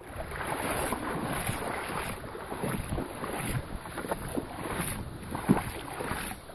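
Wind buffeting the microphone over a steady rush of moving water, uneven and gusty throughout, with one short sharp knock or splash about five and a half seconds in.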